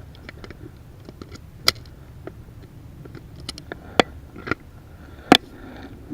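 Small metallic clicks and rattles of a Smith & Wesson Model 66 revolver being loaded and made ready, with a few sharper clicks; the loudest comes about five seconds in.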